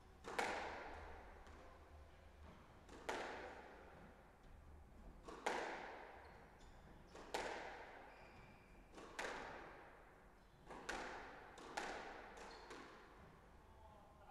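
Squash ball smacking off rackets and the court walls, a sharp hit about every two seconds, each one ringing out in the hall's echo.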